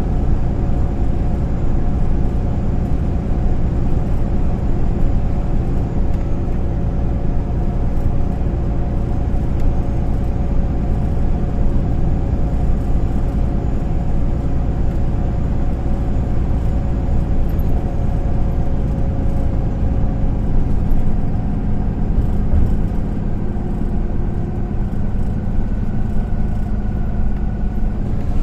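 MAN Lion's City A20 NL low-floor city bus heard from inside the passenger cabin while driving: steady diesel engine drone with low road rumble. The engine note shifts about twenty seconds in, when a new steady tone comes in.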